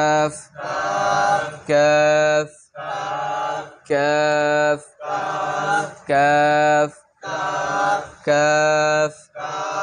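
A man's voice reciting the Arabic letter name 'kaf' in a drawn-out, chant-like way, over and over about every second, alternating between louder and softer utterances. This is a drill of the letter's correct articulation.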